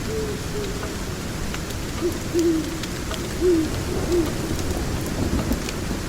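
Steady rain with scattered sharp crackles from a fire, a handful of short low tones in the first few seconds, and a low rumble of thunder building near the end.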